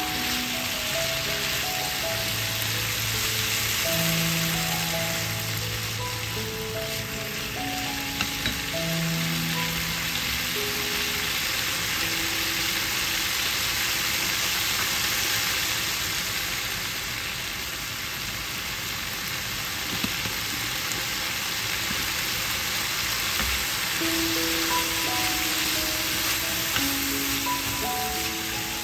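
Pork pieces with wood ear and shiitake mushrooms sizzling steadily in a hot frying pan as they are stir-fried and turned with wooden chopsticks. Soft background music plays along.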